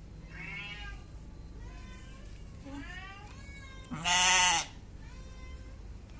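Cats meowing several times, then a goat giving one loud, wavering bleat about four seconds in.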